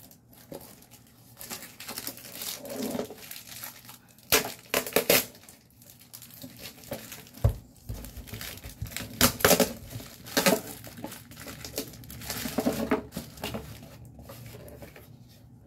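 Parcel packaging being torn open and handled: a cardboard box and plastic wrapping rip, crinkle and crackle in irregular spells, with one low thump about seven and a half seconds in.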